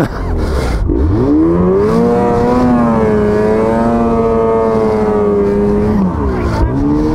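Ski-Doo snowmobile engine revving hard under heavy throttle to break the sled free of deep snow where it was stuck. The revs climb about a second in, hold high for several seconds, drop briefly near the end and climb again.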